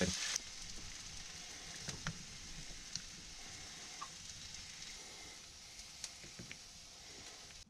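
Faint, steady sizzle of vegetables frying in a pan, with a few light clicks of a spatula.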